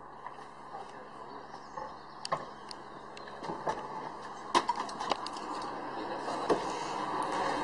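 Scattered knocks and clatters of gear being handled at an open car boot, the loudest about halfway, over a steady street background.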